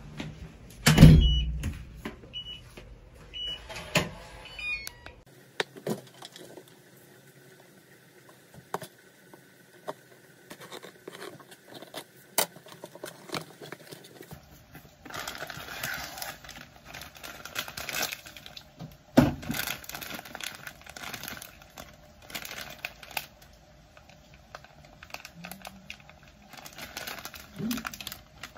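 A door and a delivered parcel being handled, with a heavy thump about a second in and a few short high beeps. From about halfway on, the cardboard parcel is torn open and its packaging rustles, with crinkling plastic food packets near the end.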